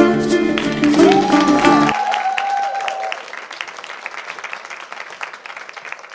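Persian dance music with plucked strings stops about two seconds in, and an audience claps, the applause fading away steadily.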